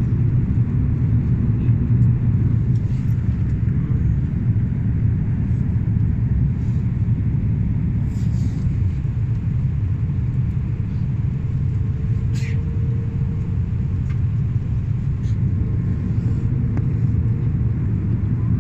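Airliner cabin noise during descent: a steady low rumble of jet engines and rushing air heard from inside the cabin.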